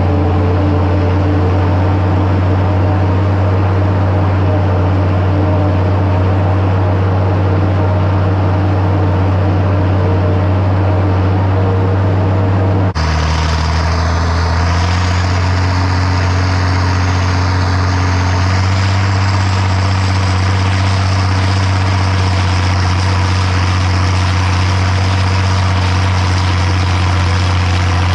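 International 1256 tractor's turbocharged six-cylinder diesel running steadily under load while pulling a New Holland 790 forage harvester chopping standing corn: a continuous deep engine drone mixed with machinery noise. About halfway through, the sound changes abruptly, getting brighter and hissier.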